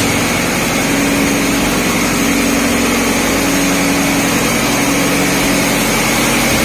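Marine diesel engines running steadily in a ship's engine room: a loud, unbroken drone with a steady hum.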